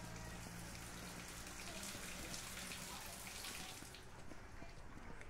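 Water spilling and draining from a rain downspout, kept faint under light rain, with a low steady hum beneath.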